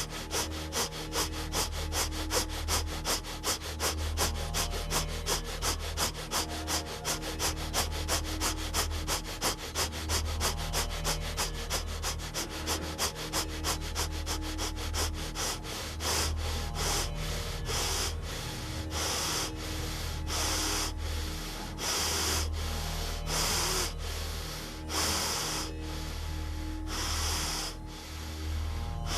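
Bhastrika pranayama, forceful bellows breathing through the nose: sharp breaths at about three a second, which slow after about halfway into fewer, longer, deeper breaths. Soft background music with a steady low drone underneath.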